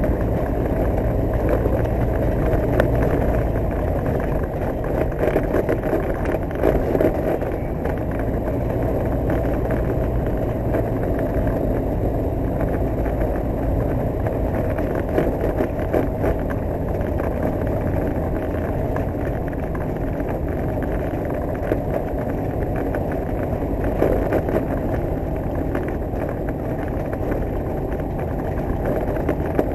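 A light aircraft's piston engine and propeller running steadily at low, taxiing power, heard from inside the cockpit, with occasional short knocks and rattles.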